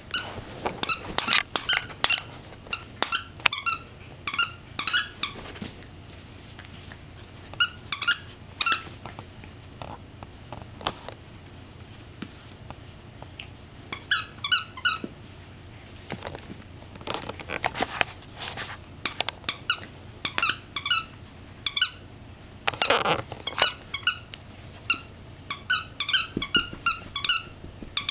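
Squeaker in a plush frog toy squeaking as a rat terrier bites down on it: short, high-pitched squeaks in quick runs of several, with pauses of a few seconds between the runs.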